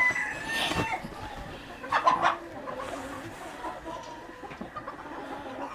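Domestic chickens clucking, with two louder calls about half a second and two seconds in.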